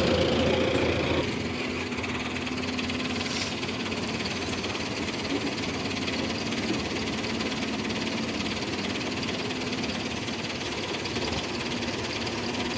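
Diesel engine of heavy earthmoving machinery running, louder for about the first second, then settling to a steady, lower-pitched run.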